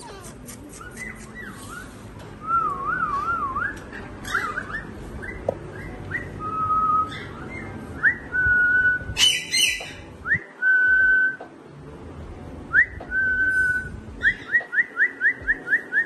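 Alexandrine parakeet whistling: a warbling whistle, rising whistles and short held notes, then near the end a quick run of about ten rising whistles. There is one short harsh screech about nine seconds in.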